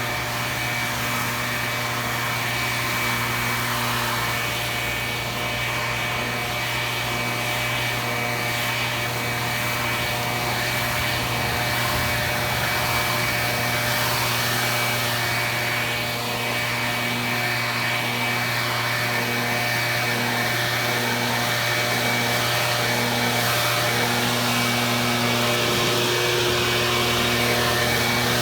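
Small gasoline engine of outdoor power equipment running steadily at a constant speed.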